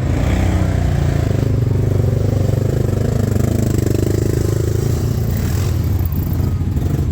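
ATV engine running steadily while riding, a low, even drone.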